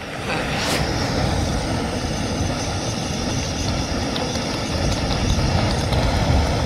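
Steady wind rumble on the microphone, mixed with the hiss of a canister camp stove burning under a steel pot. Water is poured from a plastic bottle into the pot in the second half.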